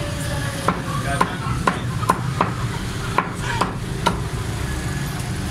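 Cleaver chopping boneless chicken on a round wooden chopping block: about eight sharp chops, roughly two a second, stopping about four seconds in. A steady low rumble runs underneath.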